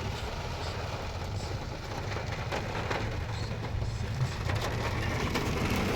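Ford F-250 pickup driving on wet storm-hit roads, heard from inside the cab: a steady engine and road hum with a hiss of wet tyres or rain. A run of light clicks and crackles comes in about four seconds in.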